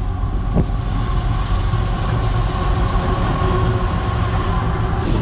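Freight train of covered hopper cars rolling across a steel truss railroad bridge: a loud, steady rumble with a faint steady ringing tone, and sharp clicks beginning near the end.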